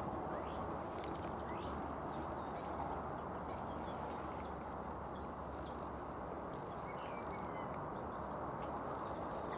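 Outdoor ambience: small birds chirping now and then over a steady rushing background noise.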